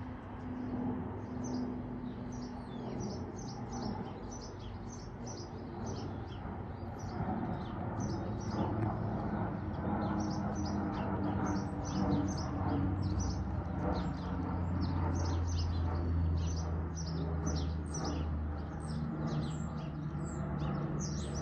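Bombardier Dash 8-Q400's twin turboprops droning low and steady overhead, growing louder partway through as the airliner passes, with its pitch stepping down. Birds chirp over it in a quick, constant run of short high calls. The sound cuts off suddenly at the end.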